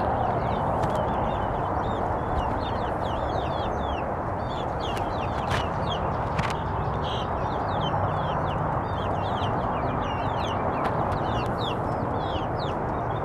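Backyard hens clucking, with many short high chirps of small birds throughout, over a steady rushing background noise.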